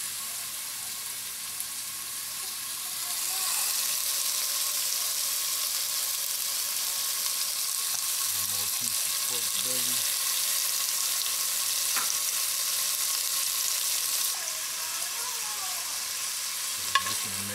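Chopped bacon and pork belly sizzling as they fry in a skillet. The sizzle grows louder about three seconds in and eases a little near the end.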